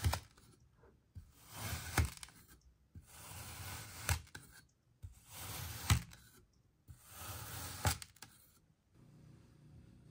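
A blade slicing through kinetic sand in repeated strokes, about one every two seconds: each a gritty hiss that swells for about a second and ends in a sharp tick, five in all.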